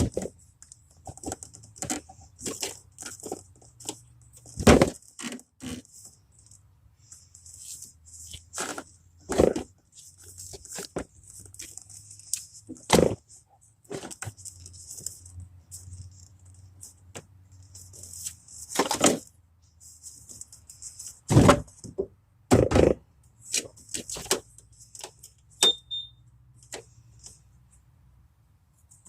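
Irregular knocks, clanks and scraping, as of hand tools and metal parts being handled during work on a car's starter, with a faint low hum underneath.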